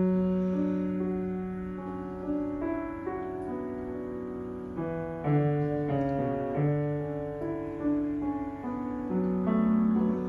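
Piano playing an instrumental interlude of a slow ballad: chords struck and left to ring, with a melody moving above them.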